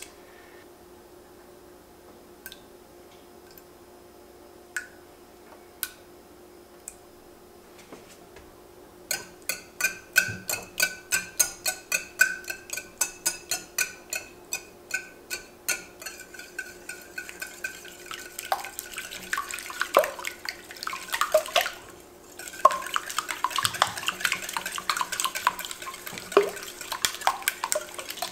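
Eggs cracked into a glass bowl give a few scattered taps, then a wire whisk beats the eggs in the glass bowl: sharp, regular clicks of the wires against the glass, about three a second, becoming faster and wetter, with a brief pause about three-quarters of the way through.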